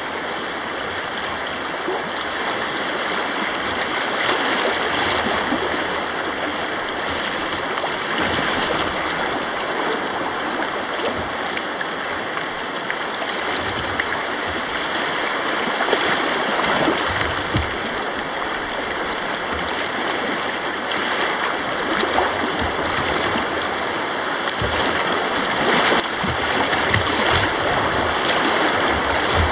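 Rapids on the Little Wolf River: fast water rushing and splashing in a steady wash, with a few faint knocks.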